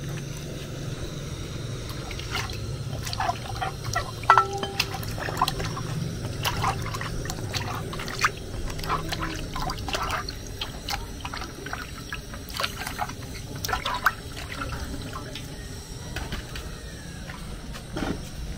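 Water being poured, then sloshed and splashed by hand in a large aluminium basin as okra pods are washed, in irregular splashes that die down near the end.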